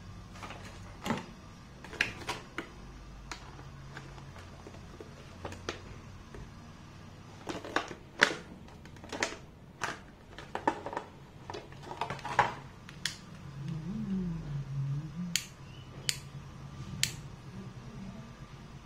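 Hands handling a hard plastic packaging tray and a neckband Bluetooth earphone: scattered sharp plastic clicks and taps, busiest in the middle, with a few crisp clicks near the end.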